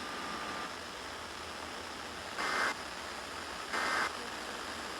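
Steady hiss of radio static, with two brief louder bursts about two and a half and four seconds in.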